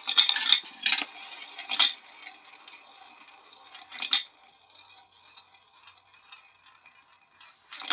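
Marbles rolling and clattering down a marble run, in bunches of sharp clicks and clacks in the first second, near two seconds, around four seconds and again at the end, with a faint rattle of rolling between.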